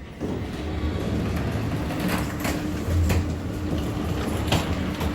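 Otis glass elevator running: a steady hum with a low rumble starts just after the beginning and grows stronger about three seconds in, with several sharp clicks and knocks.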